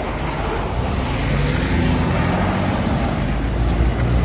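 Loaded tipper truck driving past: diesel engine rumble and tyre noise, getting louder over the first couple of seconds and staying loud.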